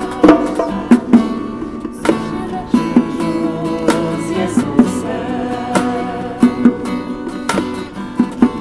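Background music from a church youth choir's song: acoustic guitar strumming chords in a passage between sung lines.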